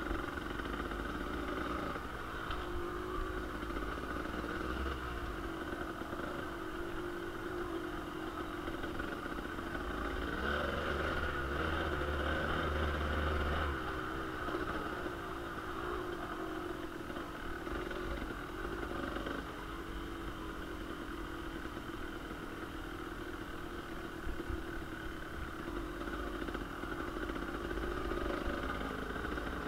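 Kawasaki KDX 220 two-stroke dirt bike engine running under changing throttle, its note rising and falling as it pulls along the trail, a little louder about a third of the way in.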